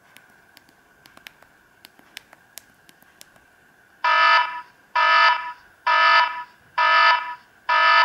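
Samsung GT-E2550 phone keypad clicking several times as menus are stepped through, then the phone's speaker sounding a loud electronic alarm tone: five beeps just under a second apart. This is the alert the phone uses for incoming SOS messages.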